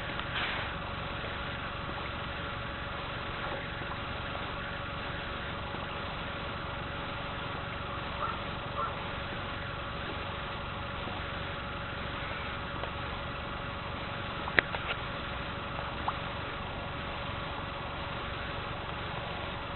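Steady background hum and hiss with a faint constant tone. There are a few soft knocks around eight seconds in and one sharp click about fourteen and a half seconds in.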